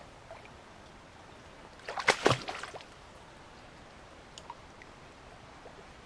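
A brief burst of splashing and sloshing water in a shallow mountain stream about two seconds in, over the faint steady rush of the flowing water, with a few small drips afterwards.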